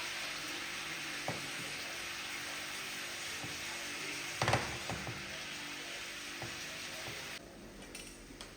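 Food sizzling in hot oil in a frying pan, with a utensil clinking and scraping against the pan a few times, loudest about four and a half seconds in. The sizzle cuts off suddenly near the end.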